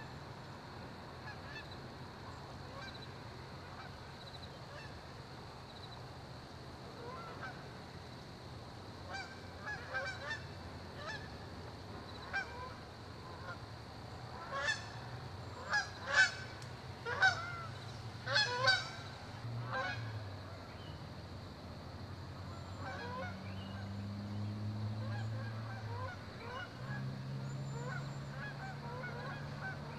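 A series of honking bird calls, scattered at first, loudest in a cluster around the middle, then fainter toward the end, over a low steady hum.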